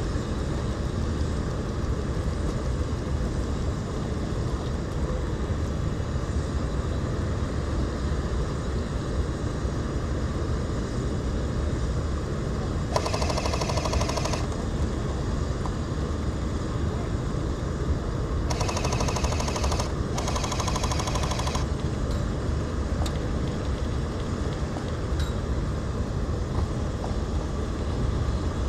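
Three bursts of rapid full-auto airsoft gunfire, each about a second long: one near the middle, then two close together a few seconds later. A steady low wind rumble on the microphone runs underneath.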